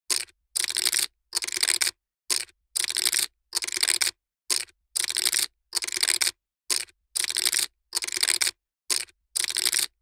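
Poker chips being shuffled by hand: short clattering riffles of about half a second each, about one and a half a second, with dead silence between them.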